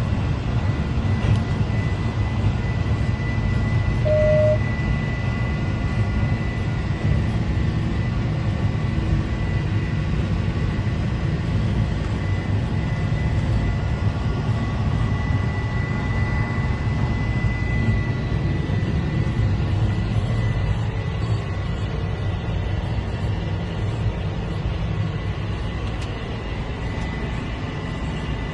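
Heavy harvest machinery, such as a combine harvester, running steadily at working speed: a deep engine drone with a thin high steady whine over it. A short beep sounds about four seconds in.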